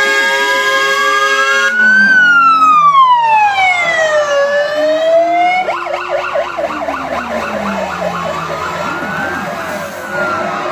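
Fire engine sirens wailing, rising and falling slowly, with an air horn held over them for the first couple of seconds. From about six seconds in, several sirens overlap, one of them cycling fast.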